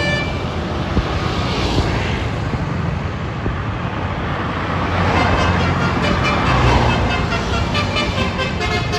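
Road traffic passing close by: the low engine rumble and tyre noise of buses and other vehicles, swelling about five seconds in.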